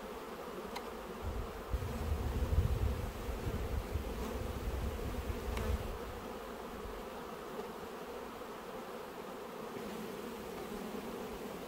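Honeybee colony buzzing steadily from an opened hive, a constant hum of many wings. A louder low rumble comes in between about one and six seconds in, with a couple of faint clicks.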